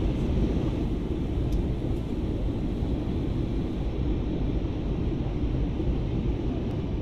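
Jet airliner in flight heard from inside the passenger cabin: a steady low rumble of engine and airflow noise.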